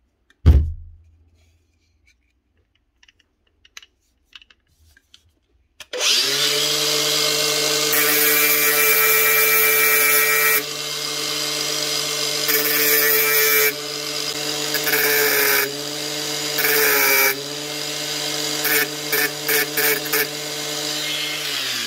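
A knock about half a second in, then a corded 4.5-inch angle grinder with a thin 1 mm inox cutting disc starts about six seconds in and runs steadily. The disc is pressed into the failed bottom rotor bearing of a Milwaukee brushless grinder in four longer grinding bursts and then several short touches, cutting the bearing back to the shaft to break its grip.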